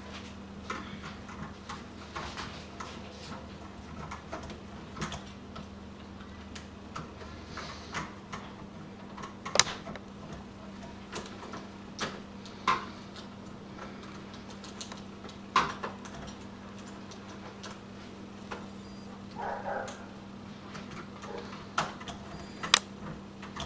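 Hand Phillips screwdriver working screws out of an old deadbolt and latch: scattered small metallic clicks and ticks, with a few sharper clicks of hardware knocking. A steady low hum runs underneath.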